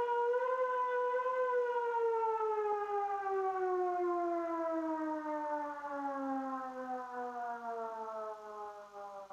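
Civil defence siren sounding the 'Attention everyone!' warning signal in a test of the public warning system: one long wail that rises slightly at first, then slides steadily down in pitch and fades as it winds down.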